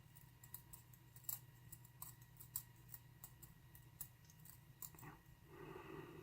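Faint, irregular small metal clicks and ticks as tools pick at a stubborn double spring in a lock cylinder's pin chamber.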